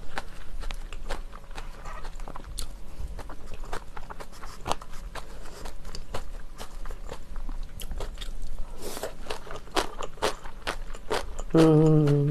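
Close-up eating sounds: chewing and crunchy bites of jajangmyeon noodles with chopped raw green chilies, in many small wet clicks, with a brief breathy sound about nine seconds in. Near the end a short hummed voice tone.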